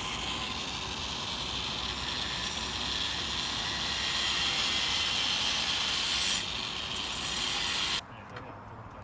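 A power tool cutting steadily through a piece about to be shortened. The cutting noise changes slightly about six seconds in and stops abruptly about eight seconds in.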